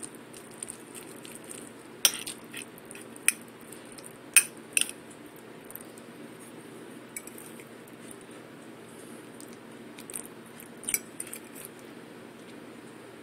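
A metal fork clinking and scraping against a china dinner plate as it works through food. Several sharp clinks come in the first five seconds, and fewer, softer ones come later.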